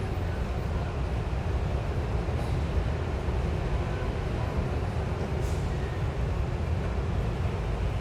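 Steady low rumble of city traffic on Broadway heard from eight floors up, blended into one continuous wash with no single vehicle standing out.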